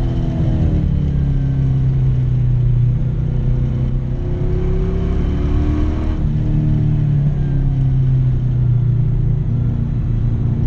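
LS1 5.7-litre V8 in a BMW 318ti running hard on a race track, its engine note dropping in pitch just after the start and rising and falling again around the middle.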